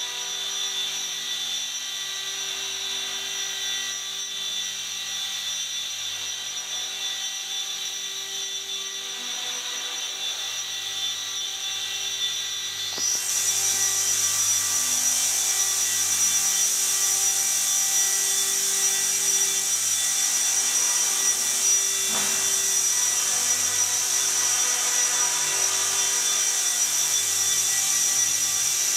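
Small electric RC helicopter, a Gaui Hurricane EP200 with a five-blade main rotor head, running with a steady high motor whine and rotor buzz. About 13 seconds in the pitch glides up and it gets louder as the rotor speeds up, then holds steady, with a brief dip a little later.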